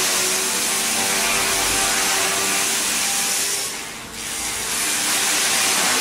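Wood-processing machinery running: a steady loud hiss over a constant hum. The noise dips briefly about four seconds in, then comes back.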